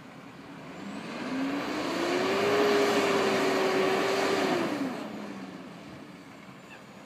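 Front-loader garbage truck's engine revving up, holding high for about two seconds, then dropping back to idle, the throttle-up that drives the truck's hydraulics while it works its lifting arms.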